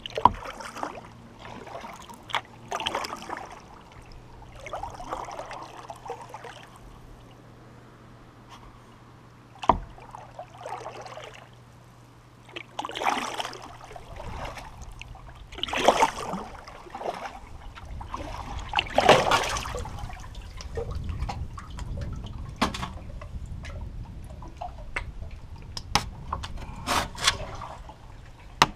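Kayak paddle strokes splashing and dripping in the water close to the hull, a swish every couple of seconds, with water trickling and lapping between strokes. A low rumble joins in about halfway through, and there are a few sharp clicks near the end.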